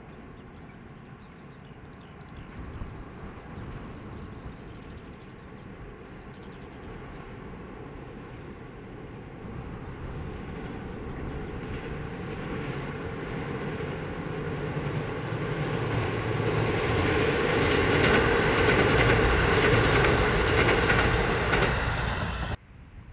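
Diesel excursion train (the first Asahiyama Zoo train) approaching across a steel girder bridge, its engines and wheels on the rails growing steadily louder as it nears. The sound cuts off suddenly near the end.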